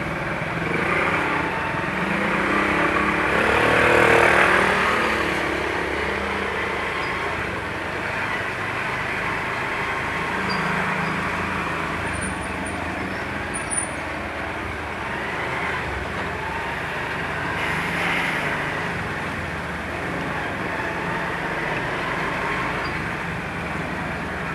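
Steady road traffic and engine noise from moving vehicles, swelling briefly about four seconds in.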